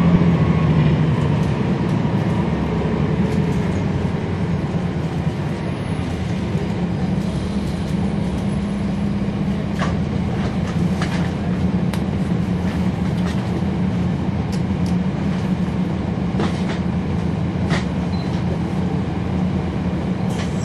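Cummins ISL9 inline-six diesel engine of a NABI 40-foot transit bus, heard from inside the cabin. It eases off over the first couple of seconds, then runs steadily as the bus travels, with occasional sharp clicks.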